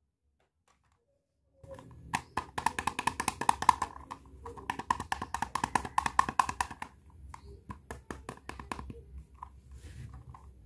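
Pink toy hair dryer switched on, giving a rapid clicking hum in two spells that stop about seven seconds in, followed by a few softer clicks of the plastic toy being handled.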